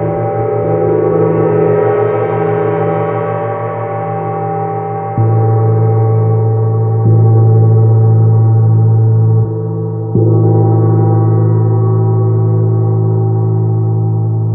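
A large bossed gong ringing with a dense wash of steady overtones over a deep hum. It is struck softly with a felt mallet about five, seven and ten seconds in, and each stroke swells the deep hum louder.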